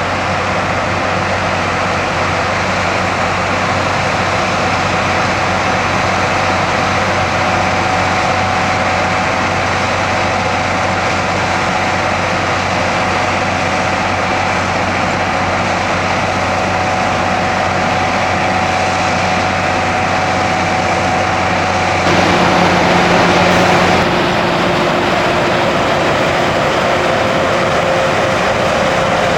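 Potato-harvesting machinery running steadily: a loud, even mechanical din with a constant hum. The sound shifts abruptly about three-quarters of the way through.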